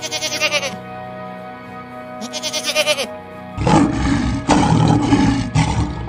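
Two quavering goat bleats, one at the start and one about two and a half seconds in, followed from about three and a half seconds by a loud, low lion roar, all over steady background music.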